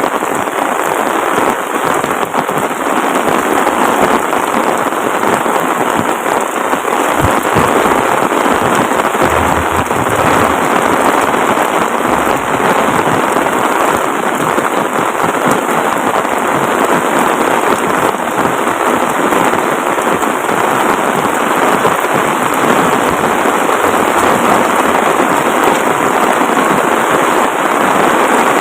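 Heavy rain pouring down steadily: a loud, even rush of drops falling on roofs, road and trees.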